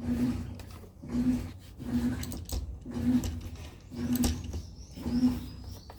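Kabum Smart 900 robot vacuum running with a strange noise: a low hum that swells and fades about once a second. The owner traced it to a thread wound around the main brush.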